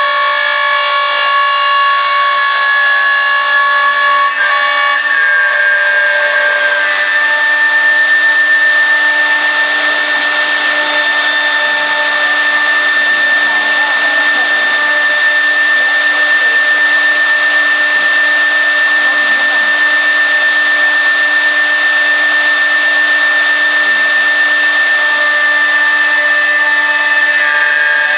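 CNC router spindle whining steadily as it cuts wood panel, with a hiss of cutting noise. About six seconds in, the whine settles into a single high tone that holds until shortly before the end, when the pitch pattern shifts again.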